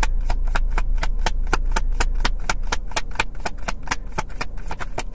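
A deck of tarot cards being shuffled by hand: a fast, even run of card-on-card taps, about seven a second.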